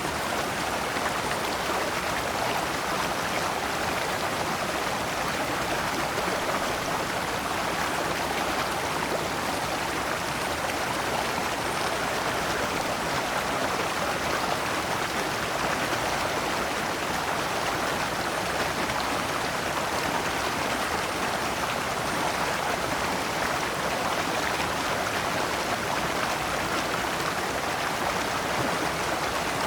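Shallow stream flowing over large rocks in small cascades, a steady, even rush of water.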